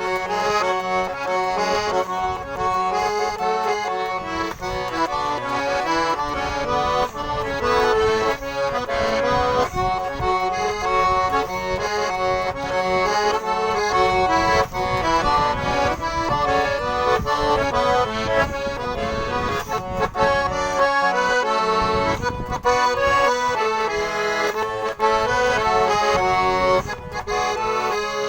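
Russian garmon (button accordion) playing an instrumental introduction at a brisk tempo: a busy melody of quick notes over a rhythmic bass-and-chord accompaniment.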